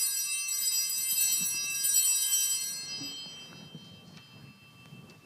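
Altar bell ringing at the elevation of the chalice during the consecration, already sounding at the start and fading away over the next few seconds.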